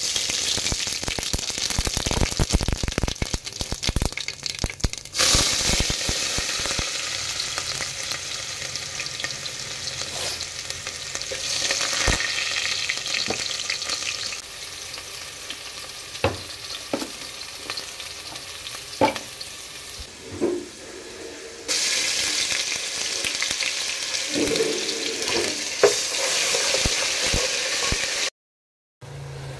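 Whole spices (shahi jeera and cinnamon), then sliced onions, sizzling in hot oil in an aluminium pot for a tempering (baghar). The sizzle is loud at first and quieter from about halfway, with a few sharp clicks of a spoon against the pot. It swells again near the end as the onions are stirred.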